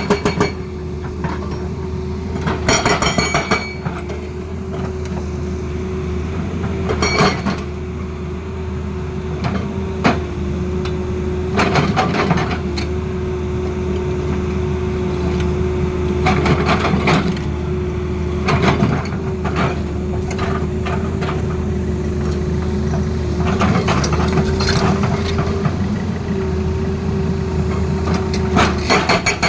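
Tata Hitachi excavator running steadily, with a hydraulic breaker hammering in short bursts of rapid blows several times over.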